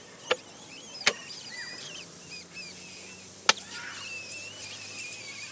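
Three sharp knocks or clicks, the first two close together and the loudest a couple of seconds later, with high squeaky chirps in between and a faint steady low hum.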